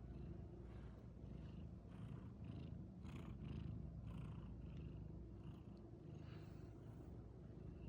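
A cat purring: a low, steady rumble.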